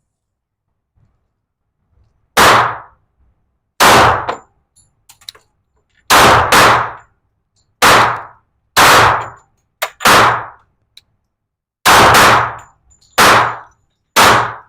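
Handgun shots at an indoor range, among them a Glock 21SF .45 ACP pistol: about ten sharp reports at uneven intervals, starting about two seconds in, each with a short echoing tail.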